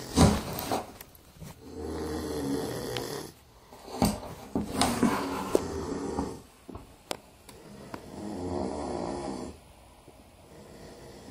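An animal snoring deeply, a long snore about every three seconds. A few sharp knocks and clicks come between the snores, the loudest just after the start; the sleeper does not wake.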